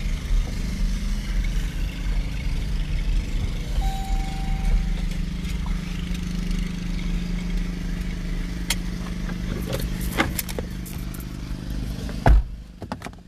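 Car cabin noise while driving slowly: a steady low engine and road hum. There is a short beep about four seconds in, and a few clicks and a loud knock near the end from the phone being handled.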